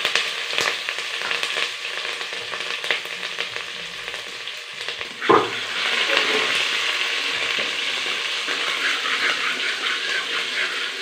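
Chopped ginger and green chillies sizzling in hot mustard oil with cumin seeds and bay leaves, as a spoon stirs and scrapes the metal pot with small clicks. There is a louder knock about five seconds in.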